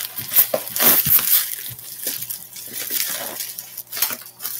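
Plastic packaging crinkling and rustling, with many small crackles, as a reflective bubble-insulation liner is pulled out of a shipping box.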